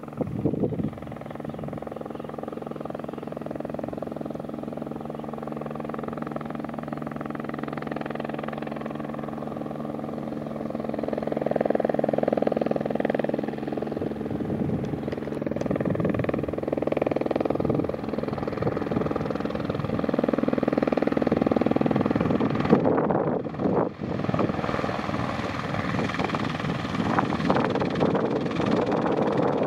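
Eurocopter AS350 B2 (H125) helicopter in flight, coming toward the listener: the steady sound of its turbine and main rotor grows louder from about ten seconds in. There is a brief dip in the sound about three-quarters of the way through.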